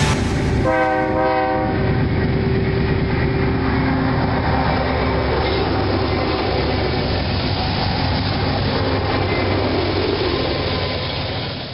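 A short multi-tone locomotive horn blast about a second in, then diesel locomotives and a freight train rolling by close, with a steady rumble and wheel noise on the rails. It fades out near the end.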